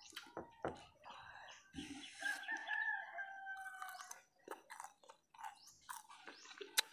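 A rooster crows once: one long call starting about two seconds in and lasting about two seconds. Around it are short mouth clicks and chewing from eating pomelo, with a sharp click near the end.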